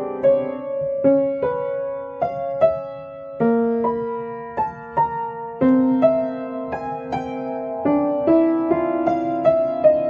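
Background music: slow, gentle solo piano, single notes and chords struck every half second or so and left to ring.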